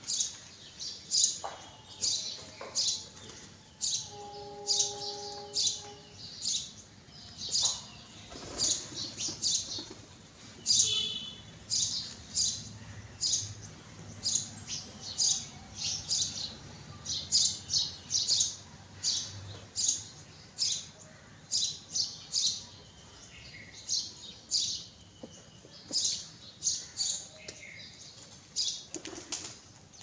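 A flock of feral pigeons feeding on the ground, with wings fluttering and birds chirping in quick, irregular bursts. A brief steady tone sounds about four seconds in.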